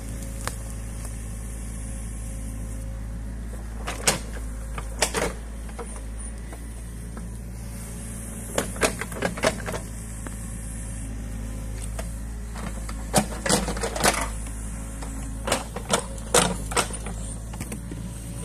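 New Holland Kobelco E50.2 mini excavator's diesel engine running steadily, with several clusters of sharp clacks and knocks from the bucket and its linkage as it works the soil of the bank.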